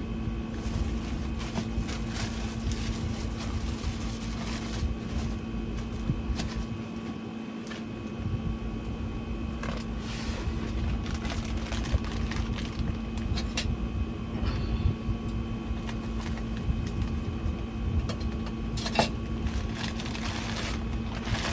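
A steady mechanical hum, with scattered light clicks and rustles over it.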